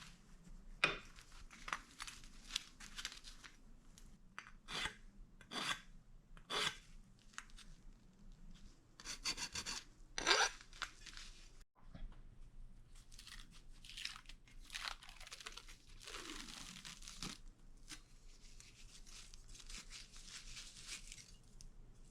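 Perforated aluminum sheet being worked by hand: a series of irregular scraping, rasping strokes of metal, spaced about a second apart at first and coming closer together later.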